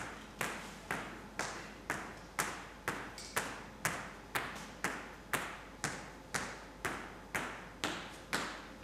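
Hard-soled shoes stepping on a stage floor at a steady walking pace, about two steps a second, each step echoing briefly in the large room.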